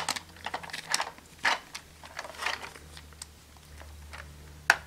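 Hard plastic toy-belt parts being handled: scattered light clicks and rubbing as a plastic belt strap is worked into the side of the buckle, then one sharp snap near the end as it clips in.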